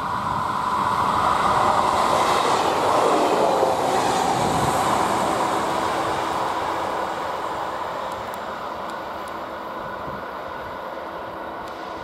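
Czech 'Hydra' diesel-hydraulic railcar passing close by. Its engine and running noise swell to a peak about two to four seconds in, drop in pitch as it goes past, then slowly fade as it pulls away. A steady high tone runs underneath.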